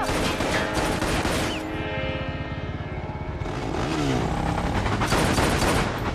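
Action-film chase soundtrack: a tense orchestral score over the noise of cars and motorcycles in street traffic. The mix thins out briefly around the middle before the vehicle noise swells back up.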